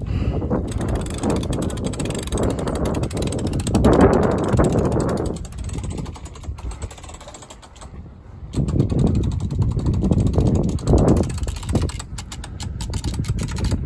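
Sailing yacht's sheet winch being cranked, its ratchet pawls clicking rapidly as a sheet is hauled in to trim the sail. It clicks in two spells, with a quieter pause in the middle.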